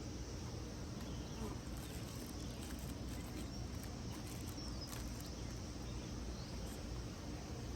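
Steady outdoor background noise with a faint insect hum and a few light ticks.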